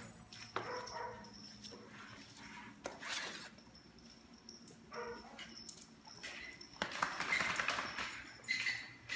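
Dogs moving about close by, with a few short whines and the scuffle and clicks of their movement; the noisiest stretch comes in the second half.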